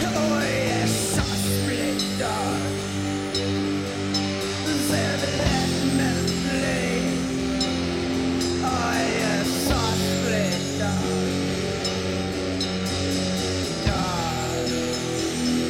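Live rock band music: electric guitar over held, sustained chords, with a melody line that glides up and down and a few sharp cymbal crashes.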